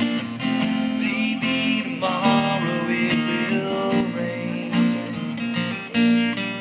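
Live folk band playing an instrumental passage between sung verses: strummed acoustic guitars with a bass line, playing steadily.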